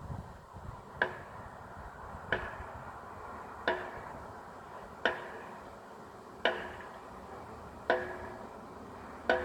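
Guard rail post driver pounding a steel post: seven evenly spaced strikes, about one every 1.4 seconds, each with a short metallic ring, over a low rumble.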